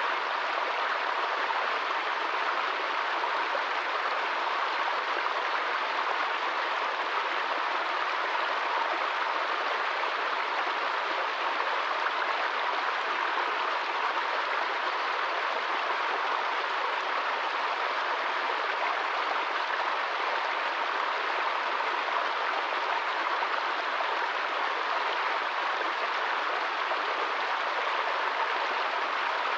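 Small stream running and splashing over rocks in a little cascade: a steady, unchanging rush of water.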